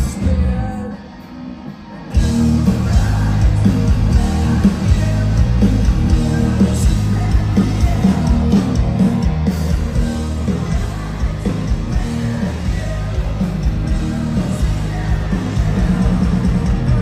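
Rock band playing live through a PA with electric guitars, bass, drums and vocals. The band drops out for a moment near the start, then crashes back in at full volume about two seconds in.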